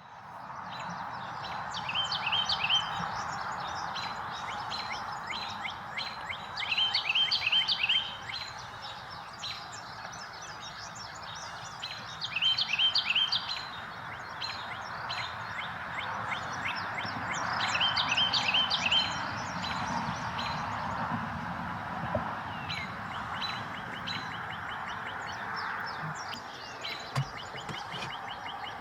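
A small bird singing short, quick trilled phrases of high chirped notes, repeated about every five seconds and fainter toward the end, over a steady background hiss.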